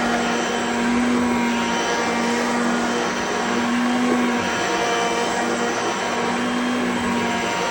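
Hoover Concept Two Electronic upright vacuum cleaner running steadily on carpet, a constant motor hum under a steady rush of air.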